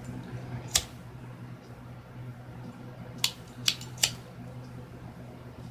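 Handheld lighter being flicked: four sharp clicks, one about a second in and three in quick succession a few seconds later, the last of them lighting the flame.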